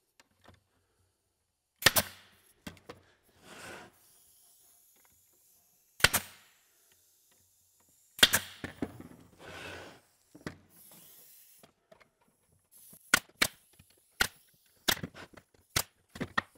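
Brad nailer firing, tacking the finger joints of a drawer together: single sharp shots about 2, 6 and 8 seconds in, then a quicker run of shots, one or two a second, over the last few seconds. Fainter rustling can be heard between the shots.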